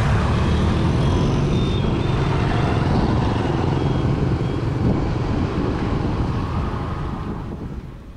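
Road traffic noise from motor scooters riding alongside and passing a moving bicycle, with wind rumble on the microphone. The sound fades out near the end.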